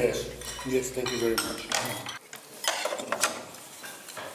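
Forks, spoons and chopsticks clinking against plates and bowls as a table of diners eat, a series of sharp separate clinks.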